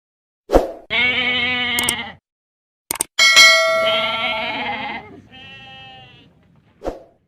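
Goats bleating: two loud, drawn-out bleats about a second and three and a half seconds in, then a fainter one. Short clicks are heard, and a brief metallic ring about three seconds in.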